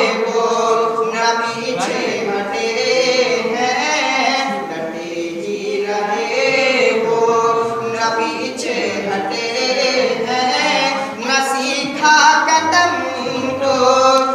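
A man singing a naat, Islamic devotional verse in praise of the Prophet, unaccompanied, in long held, wavering notes.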